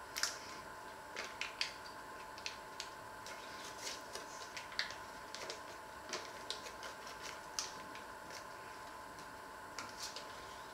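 A butter block's wrapper being unfolded by hand, crinkling and rustling in a run of irregular short crackles.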